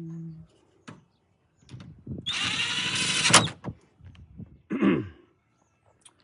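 A power drill runs for about a second, driving a 10 mm nut onto its screw, and ends with a sharp click. A shorter, falling burst comes near the end, with a few light tool clicks around it.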